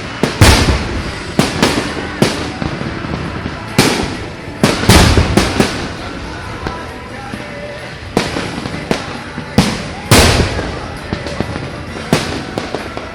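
Fireworks going off: a dozen or so sharp bangs at irregular intervals, the loudest with a deep boom.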